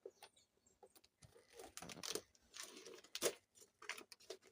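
Gift wrapping paper being torn and crinkled open by a child's hands, in short irregular rips, the sharpest a little past three seconds in.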